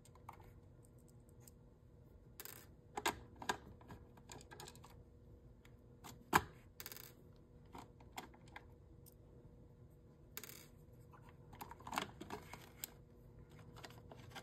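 Faint, scattered clicks and taps of a small screwdriver and tiny screws as the plastic chassis of a toy RC car is unscrewed and handled, the loudest click about six seconds in.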